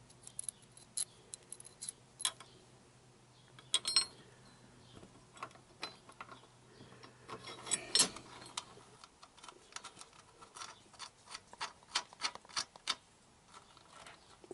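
Small metal clicks and clinks of a steel bolt and washer being worked by hand through a motorcycle crash-bar bracket and engine mount, with a couple of short metallic rings, a louder clatter about halfway and a quicker run of clicks near the end.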